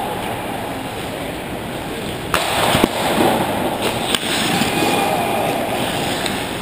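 Ice hockey play close to the net: skate blades scraping on the ice under a constant hiss, with sharp clacks of stick and puck about two and a half seconds in, again half a second later, and once more near four seconds.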